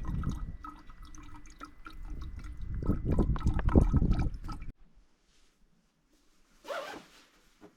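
Filtered water dripping and trickling out of a portable water filter, a dense patter of drops that cuts off suddenly after about four and a half seconds. A brief rustle follows near the end.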